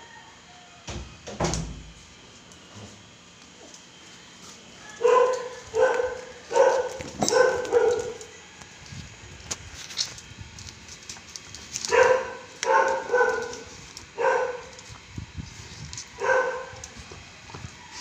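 Excited Siberian husky giving short, pitched barks in bursts: a quick run of about six some five seconds in, then a few more spaced out later.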